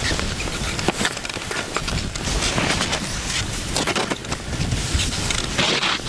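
Skis hissing and scraping over a mix of crusty snow and powder while skiing downhill, in uneven surges with short scrapes throughout.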